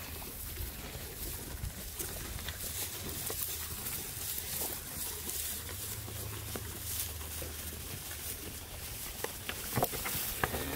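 Cattle-farm ambience: scattered light clicks and rustling over a low, steady rumble.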